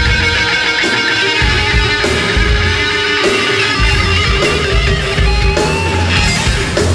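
Live hard rock band playing loud: distorted electric guitars over bass and drums.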